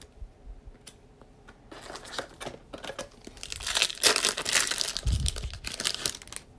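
Foil wrapper of a Panini Prizm basketball card pack being torn open and crinkled. It starts faintly about two seconds in and grows loudest in the second half.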